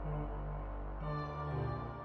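Background music: slow, sustained ambient synth tones, with the chord changing about a second in.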